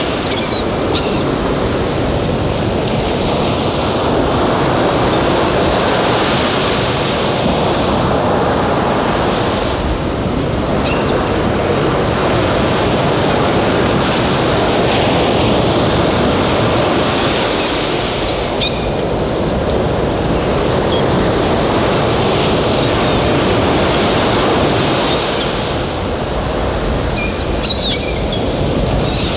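Recorded sea surf: waves washing in and ebbing, the hiss swelling and fading every few seconds, with a few short high calls now and then.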